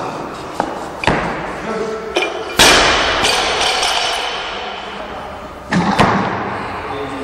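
Loaded barbells with rubber bumper plates dropped onto wooden lifting platforms after lifts: several heavy thuds, the loudest about two and a half seconds in and another near six seconds, each ringing on in the big hall.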